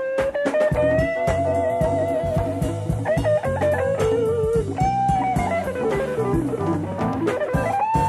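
Live jazz-fusion band heard from a cassette tape recording. An electric guitar lead holds notes with vibrato, then slides down in pitch and back up near the end, over bass and drum kit.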